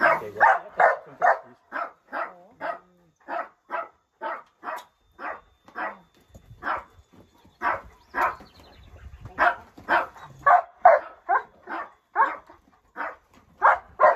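A dog barking over and over in a steady run of short barks, about two a second, slowing briefly midway.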